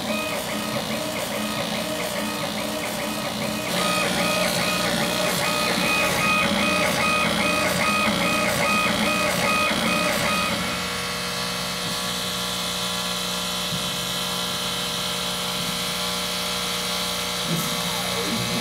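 Laguna Smartshop ILX CO2 laser cutter at work on acrylic. The laser head's drive whines in short, evenly repeating pulses as it shuttles back and forth engraving, over a steady machine hum. About ten seconds in the pulsing stops and only the steady hum is left while the head traces the cut outline.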